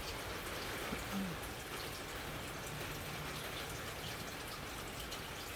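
Steady rain and wind from an approaching hurricane, an even wash of noise.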